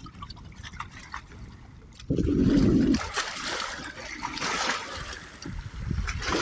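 Shallow water splashing and trickling, with a louder low rush about two seconds in that lasts about a second.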